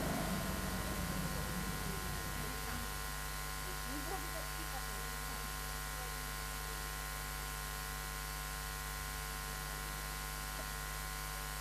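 Steady electrical hum and buzz, a set of fixed tones with nothing else much on top, after a louder noise dies away in the first couple of seconds.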